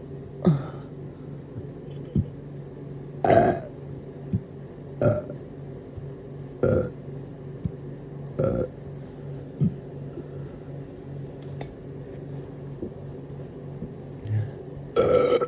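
A person burping: a string of short burps, about one every second or two, with a longer, louder one about three seconds in and another near the end.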